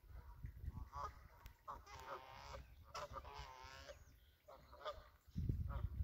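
Geese honking, several calls in a row, over a low rumble of wind or surf that swells sharply near the end.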